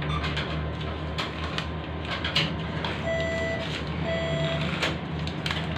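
Bank ATM sounding two half-second beeps about a second apart, its prompt to take back the returned card. A few sharp clicks of button presses and handling come before, over a steady low machine hum.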